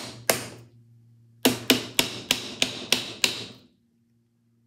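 End plate of a Victor III phonograph spring barrel being tapped into place: a single sharp tap, then about a second later a quick run of about eight taps, roughly four a second.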